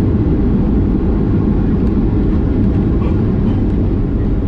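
Boeing 737-800 heard from inside the cabin on the ground just after an emergency landing: a loud, steady low rumble of the aircraft rolling along the runway.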